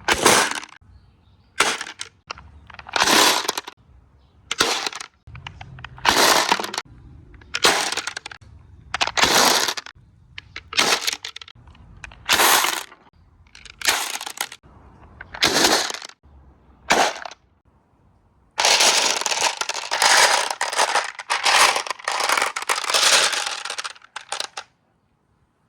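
Marbles clattering through a marble run: a string of short rattling runs about every second and a half, then a longer continuous clatter of about six seconds near the end that stops abruptly.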